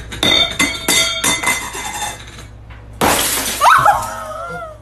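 White dinner plates, said to be unbreakable, thrown onto a hard wooden floor: several sharp clattering impacts with a ringing clink as they bounce without breaking. About three seconds in, a loud crash as a plate shatters, followed by a short falling cry.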